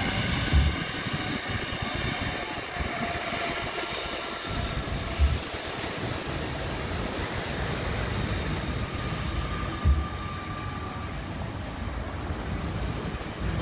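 Twin-engine jet airliner taxiing, its engines running steadily with several high whining tones over a broad rushing noise. Brief low thumps come three times, about every four to five seconds.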